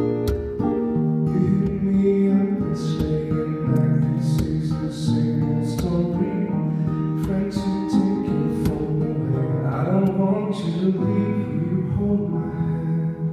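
A man singing live into a microphone while playing an acoustic guitar, picking and strumming.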